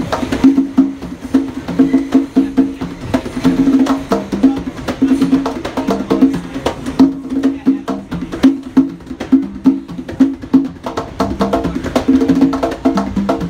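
Two hand drums played together in a fast, steady rhythm of many rapid strikes, with a recurring ringing drum tone.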